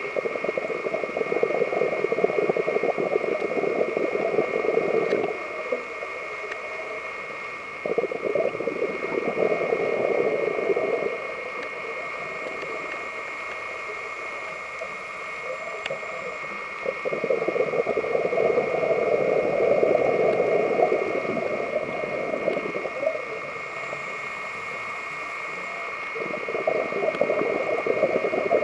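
Scuba regulator exhalations underwater: four bubbling bursts of a few seconds each, with quieter pauses for the inhalations between them. A steady high hum runs underneath.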